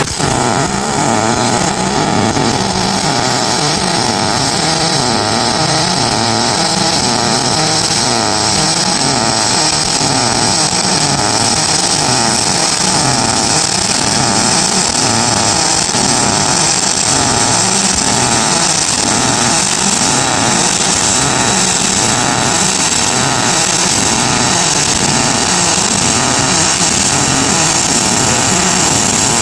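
Fantasy TRIO 230 double-pulse MIG welding arc on aluminium, running continuously as a loud buzz and hiss. It carries a regular, repeating pulsing rhythm.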